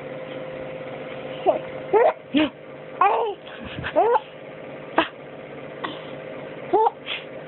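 A seven-month-old baby babbling in short, high, rising-and-falling coos and squeals, with a few brief sharp hiccups in between, over a steady faint hum.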